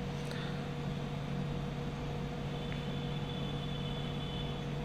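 Steady low machine hum of room background noise, with a faint thin high whine coming in about halfway through.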